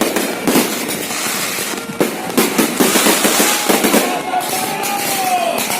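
Fireworks going off in a rapid run of bangs and crackles.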